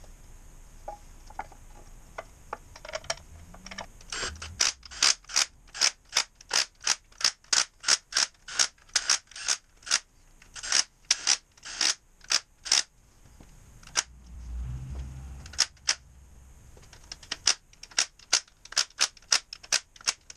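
Cordless impact driver run in short bursts, about two a second, driving bolts into the front of an Isuzu 4BD2T diesel engine block. There are a few light metal clicks before the bursts start, a pause with a low hum partway through, and a second run of bursts near the end.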